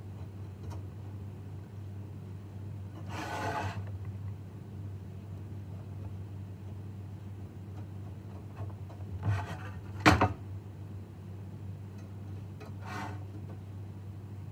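Small metal hardware being handled: short scraping, rubbing sounds as hex nuts are fitted onto screws in a perforated VEX metal frame, with a sharp click about ten seconds in, over a steady low hum.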